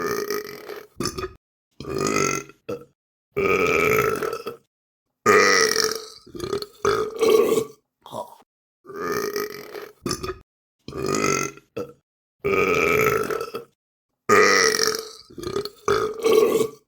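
A person burping over and over: about a dozen separate, deep, throaty burps, each up to a second or so long, with short silent gaps between them.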